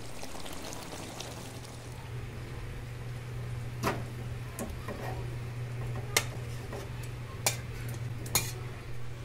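Metal cooking utensil stirring in a kadai of chicken curry, with several sharp clinks against the pan in the second half over a steady low hum.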